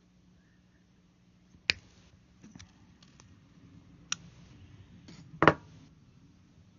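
Side cutters snipping the ends of a Cat5 cable's eight wires to an even length: three sharp snips with fainter clicks between, the loudest near the end.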